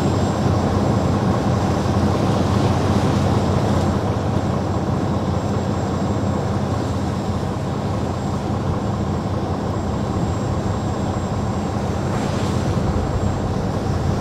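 Outboard engines of a centre-console powerboat running hard at speed, a steady drone.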